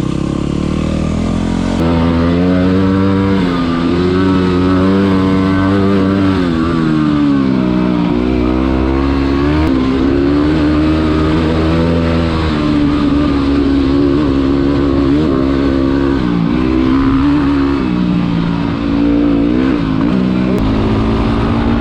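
Yamaha WR dual-sport motorcycle's single-cylinder engine under way, its note rising and falling repeatedly with throttle and gear changes.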